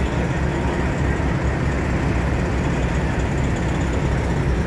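Heavy diesel truck engine idling steadily with a constant low rumble.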